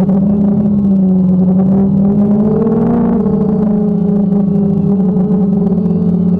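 Drone's electric motors and propellers whining steadily, heard from the aircraft's own onboard camera. The pitch rises briefly about three seconds in, then settles back.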